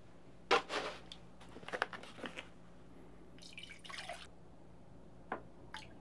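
Water poured from a plastic gallon jug into a glass pitcher on a scale. It comes in a few short splashes and drips rather than a steady stream, the loudest about half a second in, with two small drips near the end.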